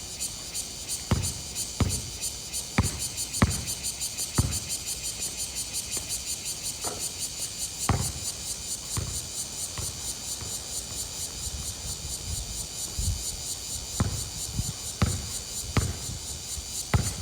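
A steady, evenly pulsing high-pitched insect chorus, with sharp knocks now and then, several in the first few seconds and again near the end.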